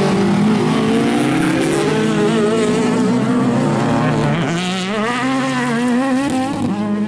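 Several circuit-racing saloon cars' engines running hard at once as the pack passes, their pitch rising and dipping as they accelerate and lift, with a marked dip and climb again about halfway through.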